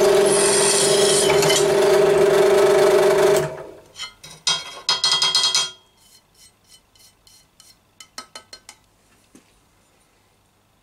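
Drill press bit cutting through a steel knife blank's handle end for a pin hole, a loud steady squeal that stops abruptly about three and a half seconds in. Then the blank clatters and clicks against the metal drill table as it is lifted and moved, with a few lighter clicks later.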